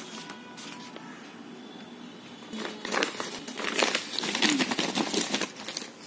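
Paper rustling and crinkling as it is handled, in a dense run of crackles through the middle few seconds after a quieter start.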